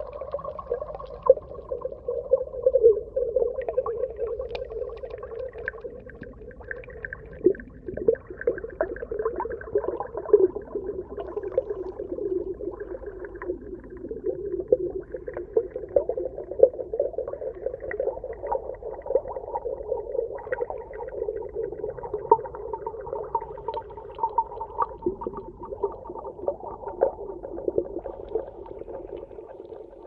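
Underwater water ambience: a steady wavering wash of moving water with frequent, irregular sharp pops.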